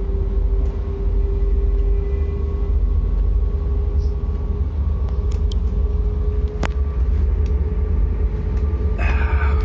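Cabin noise inside a moving TER regional train: a steady low rumble with a constant humming tone over it, and one sharp click about two-thirds of the way through.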